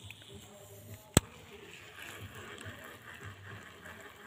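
One sharp click about a second in, over faint steady outdoor background noise.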